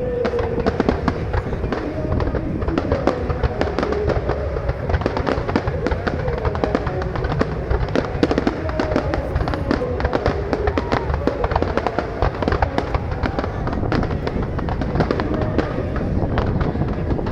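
Fireworks going off in a dense, continuous run of bangs and crackles, with music playing underneath.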